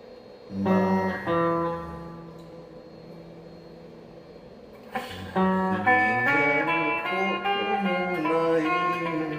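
Guitar music: a chord about half a second in that rings out and fades, then from about five seconds in a run of plucked notes, some bending in pitch.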